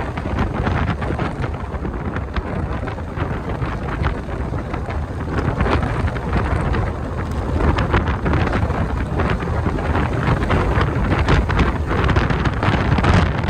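Wind buffeting the microphone in a moving car: a loud, continuous low rumble with frequent crackling gusts.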